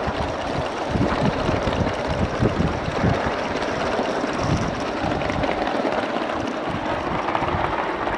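An Accucraft live-steam model of a Pennsylvania Railroad T1 locomotive running along its track: a steady rushing hiss of steam exhaust and wheels on the rails, with irregular low thumps.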